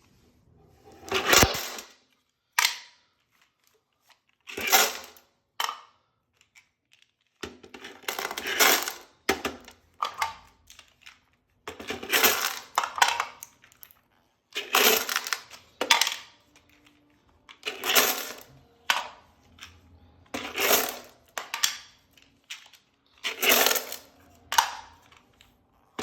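Loose cartridges being poured by the handful into an ammo box: about a dozen bursts of metallic clinking and rattling, one every one to three seconds, with short pauses between them.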